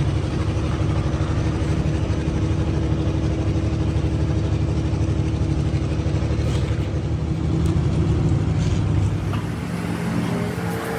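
An engine running steadily with a low, even drone. A higher steady whine joins near the end.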